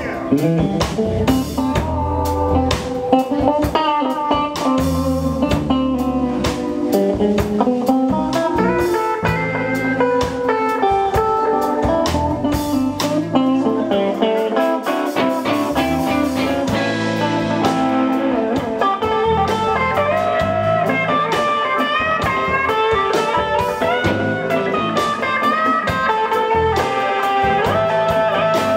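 Live blues band playing an instrumental passage: electric guitars carry the melody lines over a drum kit and bass, played steadily and loud.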